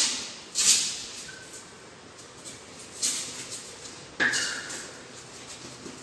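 Handling noise from cricket batting pads being strapped on: three short rasping bursts, about half a second in, about three seconds in and just after four seconds, over faint rustling.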